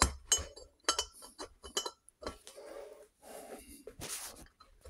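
Light metallic clicks and clinks in the first two seconds as a new main-shaft ball bearing, cold from the freezer, is worked by a gloved hand into the heated alloy gearbox shell of a Norton Commando, then softer rustling.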